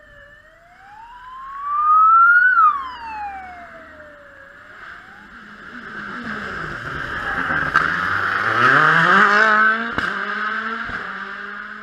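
Modern rally car approaching the hairpin and accelerating: its engine note climbs steadily in pitch, loudest about eight to nine seconds in, with a few sharp pops. In the first few seconds a high whine rises and then falls in pitch.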